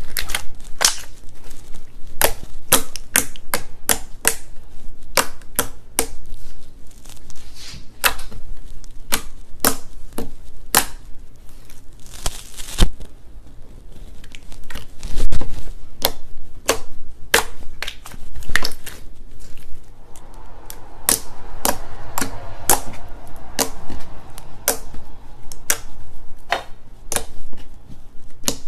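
Glossy slime being pressed, poked and squeezed by fingers, giving a run of sharp clicks and pops about two a second, with one heavier squelch partway through.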